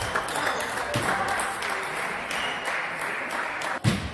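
Spectators applauding: dense clapping with a couple of low thumps, dying away near the end.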